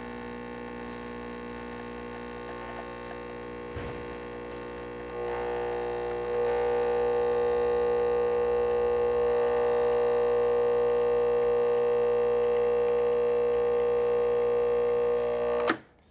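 Krups Type 966 espresso machine running its pump for a shot: a steady electric hum with a buzzing tone that grows louder about five to six seconds in, then cuts off suddenly with a click near the end as the machine is switched off.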